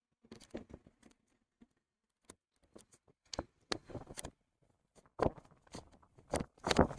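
Soft, irregular clicks and rustles from a person walking on grass with a handheld camera, sparse at first and growing louder and busier from about five seconds in.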